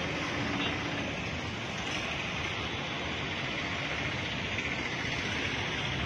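Steady rushing noise of outdoor street ambience, an even hiss with a low rumble under it.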